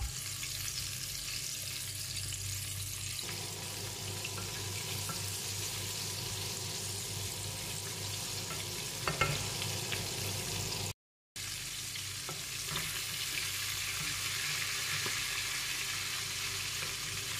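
Breaded chicken pieces deep-frying in hot oil in a steel pot, a steady bubbling sizzle. A light click sounds about nine seconds in, and the sound drops out for a split second about eleven seconds in.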